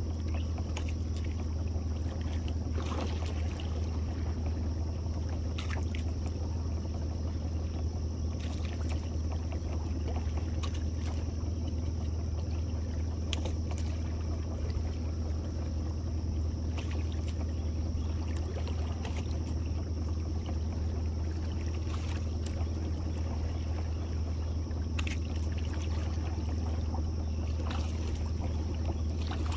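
Boat's outboard motor idling steadily as the boat creeps along a crab trotline, a constant low hum. Water trickles off the line, with scattered sharp clicks now and then.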